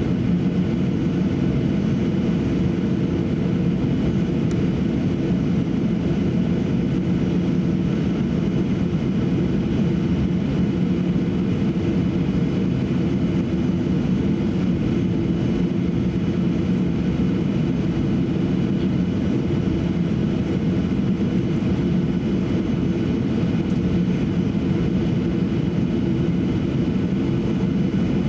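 Boeing 737-800 airliner taxiing, heard from inside the passenger cabin: its CFM56-7B jet engines and cabin air make a steady, even drone with a low hum and a few held tones.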